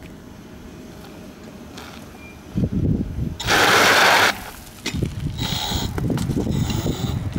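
A 7000-watt electric bike launching hard: about a second after a rough start, its rear tyre spins on loose grit with a loud hiss of spraying dust and gravel lasting about a second, then rolls on the road with a rough rumble as the bike pulls away.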